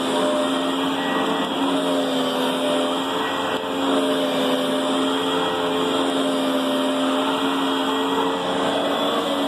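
Riccar Brilliance upright vacuum cleaner running steadily: a loud motor hum and airflow hiss, its pitch wavering slightly.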